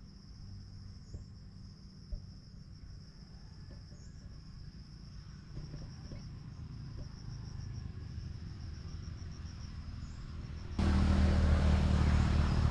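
Insects trilling steadily at a high pitch, with a low rumble beneath. Near the end a much louder rushing noise with a heavy low rumble cuts in suddenly and covers the trill.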